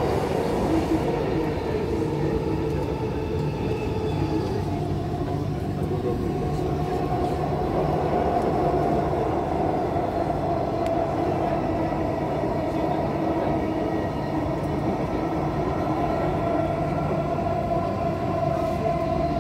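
Dubai Metro train running steadily on elevated track, heard from inside the carriage: a continuous rumble with a faint whine that shifts slowly in pitch.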